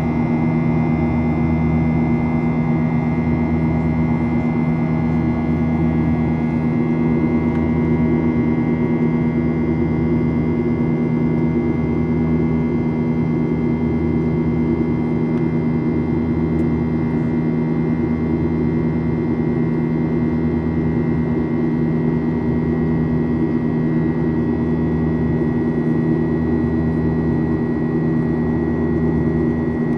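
Cabin noise inside a Boeing 737-800 with its CFM56 jet engines running steadily. There is a constant hum, a thin high whine, and a low throb that swells and fades about once a second.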